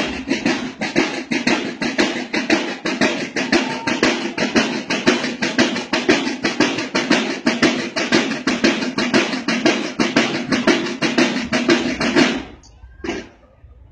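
Marching band drums playing a fast, steady cadence of about four or five strokes a second, cutting off together about twelve seconds in, followed by a single stroke a moment later.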